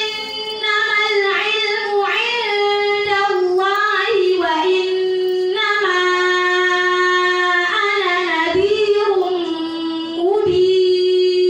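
A woman's voice reciting the Qur'an in melodic tajwid style, drawing out long held notes with small ornamental turns in pitch. The line barely breaks, pausing briefly about ten seconds in before rising onto another long note.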